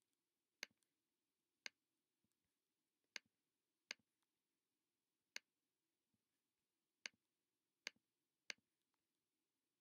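Eight sharp single clicks of a computer pointing-device button at uneven intervals, about one a second, as quiz answers are selected, over faint steady room hum.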